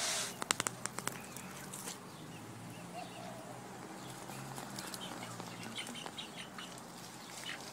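Barred Plymouth Rock hen being handled: a few sharp clicks and rustling in the first second, then brief wing flapping and a few soft, low hen calls.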